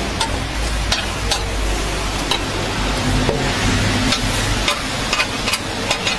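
Steel press plate being pushed and scraped over a hot flat-top griddle, making sharp metallic scrapes and clicks at irregular intervals over a steady frying sizzle. A low rumble runs underneath and fades out about two-thirds of the way through.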